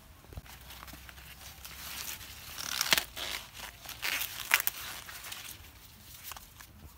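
Dry corn leaves and husk rustling and crackling as an ear of green corn is pulled and snapped off its stalk. The two sharpest, loudest crackles come about three and four and a half seconds in.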